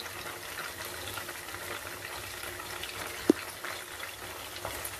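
Chicken pieces frying in hot oil in a kadai: a steady sizzle with small crackles. One brief sharp sound comes about three seconds in.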